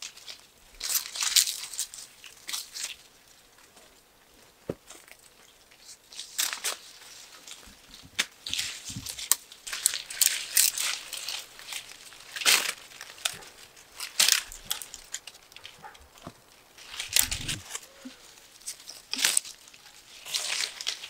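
Leafy walnut branches rustling in short, irregular bursts as hands pull at them to pick the green walnuts.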